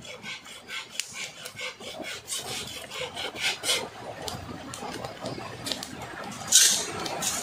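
Wood being scraped with a blade in quick repeated strokes, about three a second, as when shaving tinder for a fire. A short, louder hissing rush comes near the end.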